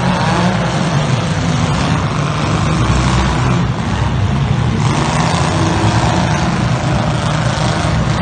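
Engines of several demolition derby cars running and revving at once: a loud, dense, continuous rumble.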